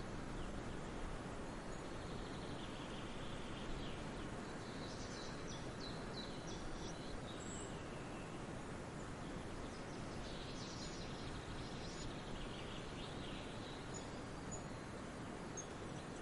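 Small birds chirping faintly over a steady background hiss, the chirps coming in two brief clusters with a few single high notes between.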